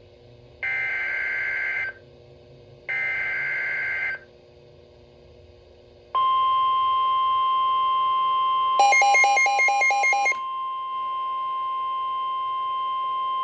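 NOAA Weather Radio Emergency Alert System activation for a severe thunderstorm warning. Two bursts of SAME digital header data, each a two-tone electronic screech about a second long, are followed a couple of seconds later by the steady, single-pitch 1050 Hz Warning Alarm Tone. For about a second and a half, a rapid pulsing beep overlaps the alarm tone.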